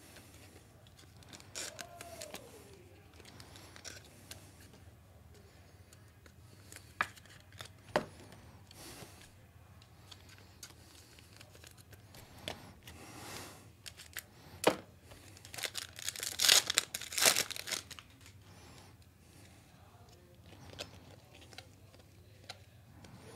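Trading-card pack wrappers tearing and crinkling as basketball card packs are opened, with scattered light clicks and taps from handling. The loudest run of tearing comes about two-thirds of the way through.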